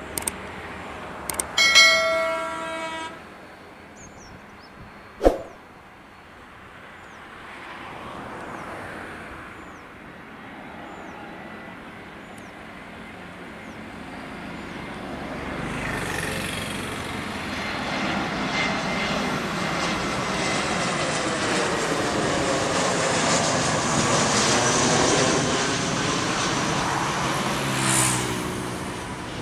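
Airbus A320 airliner on final approach passing low overhead: the jet engine and airflow noise swells over several seconds, is loudest near the end, then begins to fade. Near the start a vehicle horn sounds briefly, and a single sharp knock follows a few seconds later.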